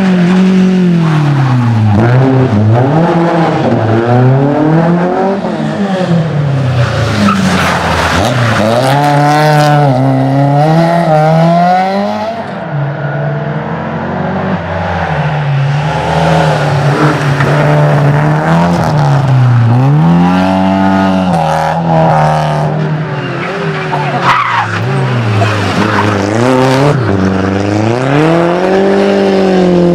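Several rally cars in turn, the first a BMW E30 and the last a SEAT León, driven hard through corners. Engine pitch climbs through each gear and drops sharply at each shift or lift, over and over.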